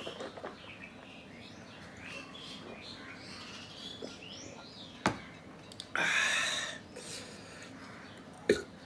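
A man drinking water from a glass, with small gulps, then the glass set down with a sharp clink about five seconds in. A loud breathy exhale follows about a second later, and there is another light tap near the end.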